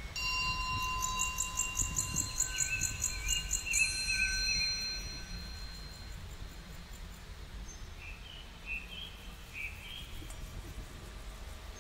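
Small birds singing: a fast, even ticking trill of about four notes a second for the first few seconds, with thin whistled notes and a warble, then scattered short chirps, over a low outdoor rumble.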